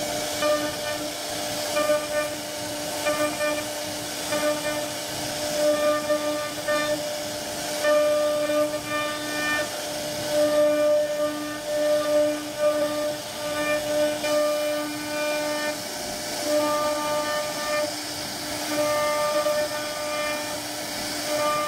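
CNC wood router running, its spindle holding a steady whine while the bit cuts grooves into a wooden door panel, with a hiss of cutting over it. Higher whining tones keep cutting in and out every second or so as the head moves.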